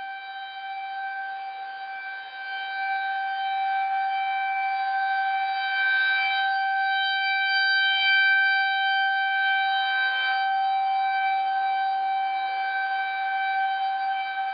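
Outdoor civil-defense warning siren sounding a tornado warning: a steady wail held on one pitch, growing louder a few seconds in.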